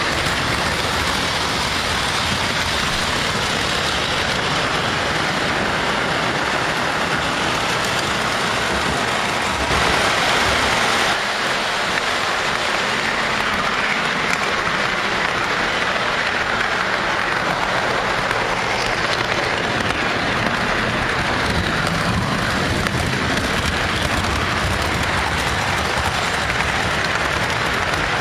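Steady rattling rumble of an O scale model train camera car rolling over three-rail track: wheels clattering on the rails along with the train's running noise.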